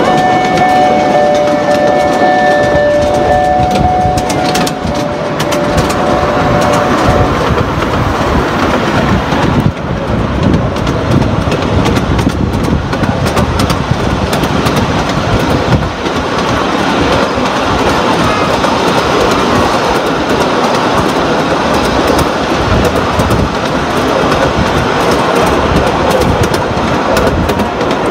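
Ride-on miniature park train running along its track, a steady loud noise of the small cars' wheels on the rails. A few held tones sound over it in the first several seconds.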